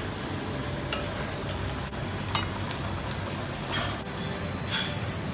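Bhatura deep-frying in a pot of hot oil, sizzling steadily over a low hum, with several short metallic clinks of a slotted spoon and pot scattered through.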